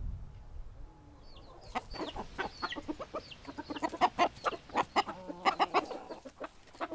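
Chickens clucking in many short, quick calls, starting a little under two seconds in, with some higher chirps among them.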